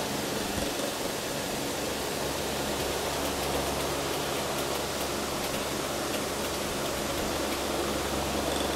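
Electric desk fan running: a steady rushing noise over a low electrical hum.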